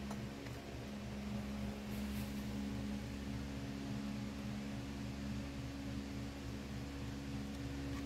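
Steady low machine hum, a few constant tones with a faint pulsing about four times a second.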